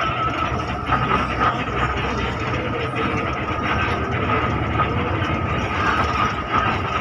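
Inside a moving intercity bus: steady engine and road noise, with a constant high whine and frequent small rattles of the cabin fittings.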